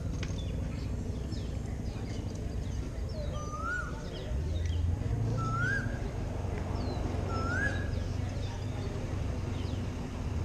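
Birds calling: a short rising whistled note three times, about two seconds apart, with scattered higher chirps. A steady low rumble runs underneath.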